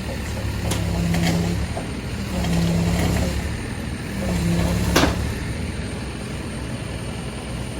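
Heavy road vehicle's engine running with a steady low rumble, a pitched drone swelling three times, and a sharp knock about five seconds in.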